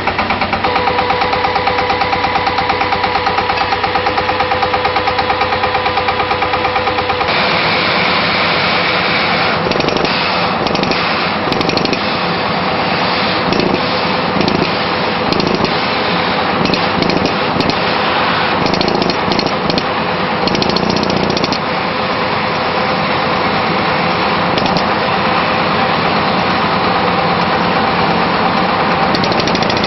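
Pneumatic well-drilling rig hammering: a fast, even rattle of air-hammer blows over the machine's running engine, turning about seven seconds in to a harsher hissing, chattering noise.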